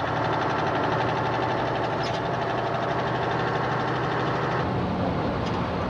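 Lorry's diesel engine running, heard from inside the cab: a steady engine note whose upper part drops away about four and a half seconds in.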